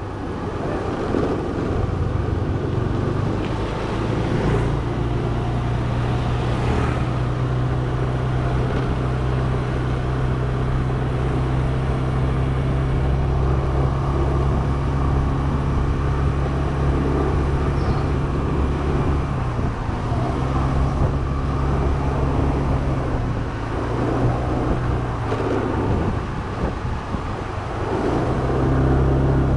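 A motor scooter's small engine running steadily while riding along, heard from the rider's seat. It eases off for several seconds past the middle of the stretch and picks up again near the end.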